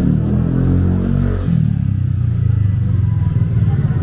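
A motor vehicle's engine running close by, its pitch dropping briefly about a second and a half in and then picking up again.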